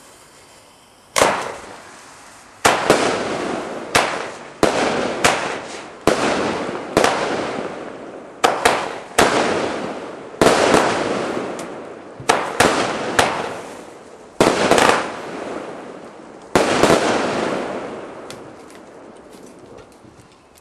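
A firework firing a rapid series of about fifteen sharp bangs over some sixteen seconds, irregularly spaced, each fading away over about a second.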